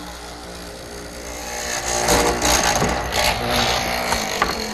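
A hollow-chisel mortising machine runs steadily while its 1/2-inch square chisel and auger are plunged again and again into a wooden armrest blank to cut a through mortise. The cutting grows louder and rougher from about two seconds in.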